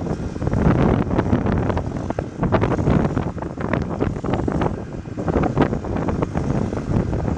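John Deere 310SG backhoe loader's diesel engine running, with frequent clanks and rattles from the machine and wind buffeting the microphone.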